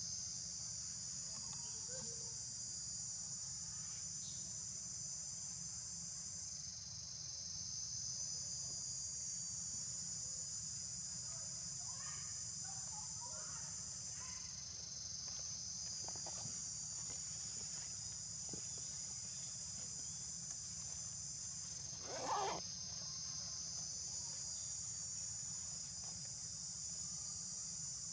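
Steady, high-pitched insect chorus shrilling without a break over a low background hum, with one short louder noise about three quarters of the way through.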